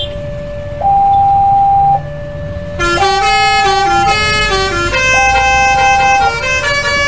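Railway level-crossing warning alarm sounding an alternating two-tone, a low and a higher note about a second each, repeating. About three seconds in, a loud tune of many quick horn-like notes starts over it.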